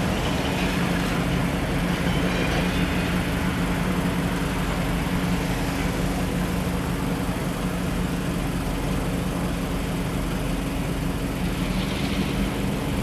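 Two EMD GP38-2 diesel locomotives, 16-cylinder 645 two-stroke engines, running steadily at low power with an even low drone as they move slowly down the track.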